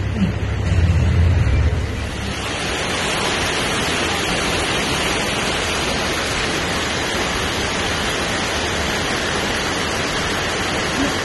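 A low rumble for about two seconds, then a steady, even rushing hiss.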